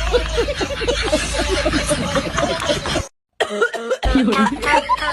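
A man coughing over and over in a rapid fit, with a short break in the sound about three seconds in.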